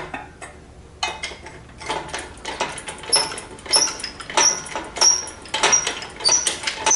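Hydraulic engine hoist being worked to lift an engine hanging in chains: a metal clank with a short high squeak on each stroke, about one every half second or so from about three seconds in, with the chains clinking, after a few scattered knocks.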